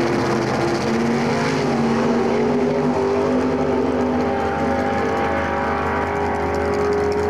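A front-engine dragster's engine running loudly and steadily while the car waits at the starting line. Its pitch steps up slightly about three seconds in.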